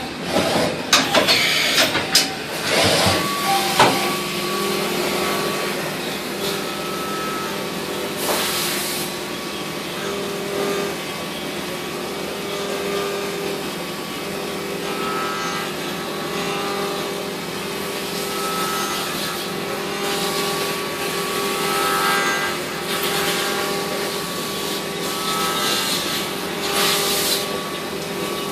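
Mazak 410A vertical machining center running, a steady mechanical hum and whine with several held tones. There is a cluster of sharp knocks and clatter in the first few seconds, and short bursts of hissing about eight seconds in and again near the end.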